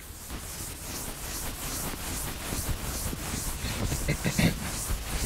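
Chalkboard eraser wiping across a blackboard in repeated back-and-forth strokes: a rhythmic swishing, about two to three strokes a second.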